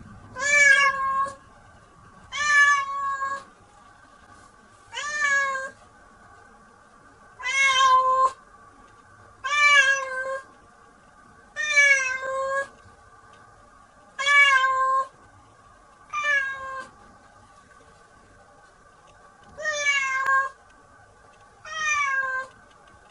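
Domestic cat meowing over and over, ten drawn-out meows about two seconds apart, each rising and then falling in pitch. These are the protest cries of a cat that does not want to be bathed.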